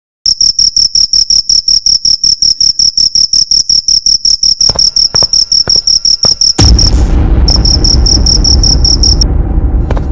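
Crickets chirping in a fast, even pulse of about seven chirps a second. A little past halfway a loud low rumble comes in beneath them; the chirping breaks off briefly, resumes, then stops near the end, leaving the rumble and a few faint knocks.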